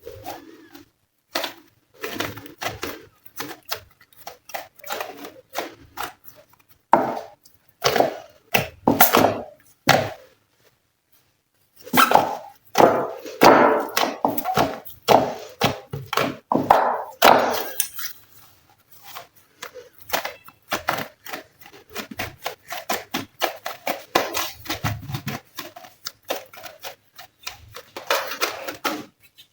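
Hands kneading and pressing glossy slime, making a quick, irregular run of sticky clicks, pops and squelches, with a pause of about two seconds near the middle.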